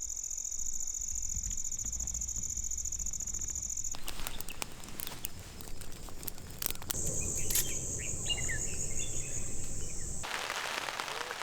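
Rainforest ambience: insects keep up a steady high-pitched buzz, which gives way about four seconds in to a stretch of even hiss. A pulsing insect buzz with a few short bird chirps comes in about seven seconds in.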